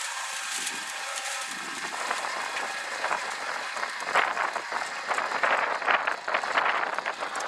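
Small electric cement mixer with its drum turning and tipped: a motor hum, then wet concrete and gravel slopping and rattling out of the drum into a plastic wheelbarrow. The rattle is densest from about four seconds in.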